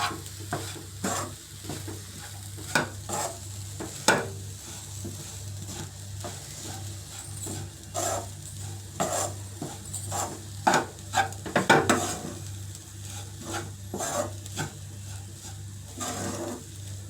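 A spoon stirring and mixing poha in a pan on the stove, with irregular scraping knocks against the pan and a light sizzle underneath.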